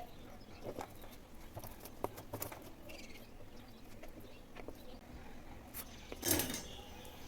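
Scattered small clicks, taps and rustles of hands handling wires and a plug while hooking up a series test lamp to the mains, with a louder rustling scrape about six seconds in.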